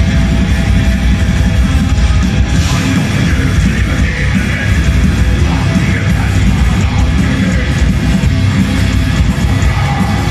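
Black metal band playing live and loud: distorted electric guitars over bass and drums in a dense, unbroken wall of sound.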